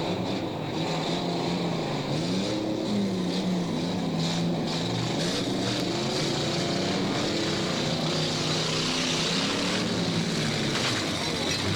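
Several stock car engines running together, revving up and down so that their pitches rise and fall over one another, with a few faint knocks.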